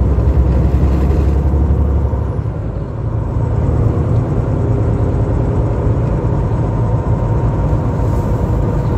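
Semi-truck engine and road noise heard from inside the cab while driving: a steady low rumble. The deepest part of the rumble falls away a little past two seconds in, with a brief dip in level, and then builds again.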